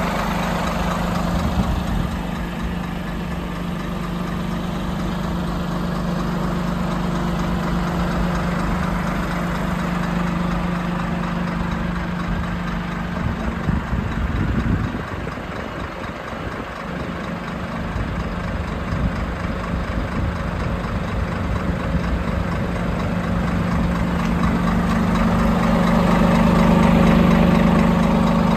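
Scania 460 Super 13-litre straight-six diesel idling steadily with a low, even hum, briefly quieter around the middle.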